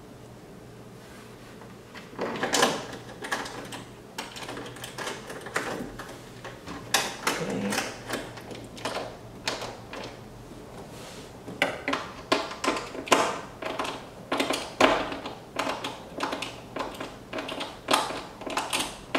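Screws being hand-started with a screwdriver into a carbon fibre engine surround: a string of short clicks and scrapes from the tool and the parts, turning steadier in the second half at about two a second.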